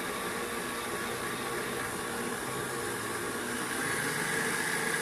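Hanabishi stand mixer running steadily, its beater whirling through thick chocolate cake batter. A high motor whine grows louder a little before the end.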